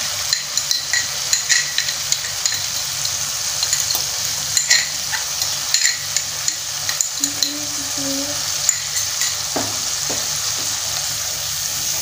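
Onion-and-spice masala sizzling steadily in hot oil in a pot as yogurt is spooned in, with scattered sharp clicks through the sizzle.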